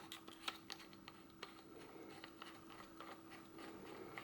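Faint, scattered small clicks and taps of a Super 8 camera body being handled, over a faint steady hum.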